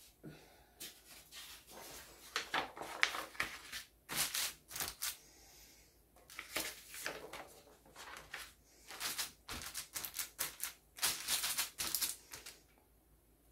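Dry red onion skin and paper crackling and rustling in irregular clicks as they are handled and pressed flat by hand in a baking tray.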